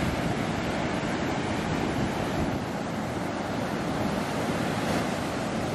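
Ocean surf breaking and washing up a sandy beach, a steady rush.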